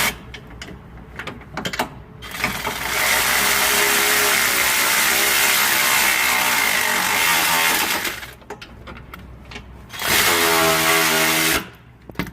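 Handheld power tool running in two loud bursts during stabilizer-link fastening work. The first starts about two seconds in and lasts some six seconds; the second is shorter, near the end, and its pitch slides as it speeds up and slows. Light clicks and knocks come between the runs.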